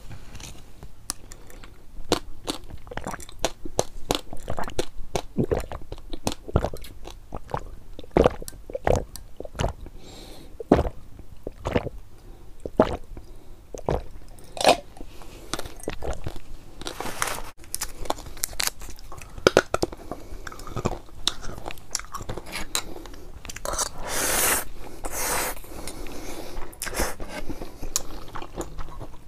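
Close-miked eating sounds: repeated bites, crunching and chewing of food, with many sharp crackles throughout and a denser patch of crunching near the end.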